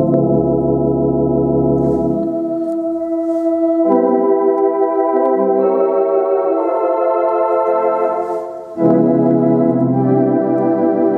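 Viscount Physis organ playing sustained chords on its theatre-organ tibia stop with the tibia tremulant on, so the notes waver. The chords change a few times, break off briefly about eight and a half seconds in, then start again.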